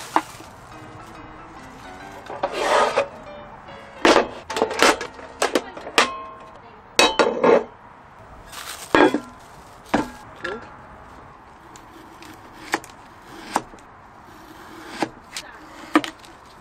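Cookware and food packets being handled and set down on a wooden camp table: a series of irregular knocks, clinks and rustles. Near the end a knife slices through food onto a cutting board in a run of light taps.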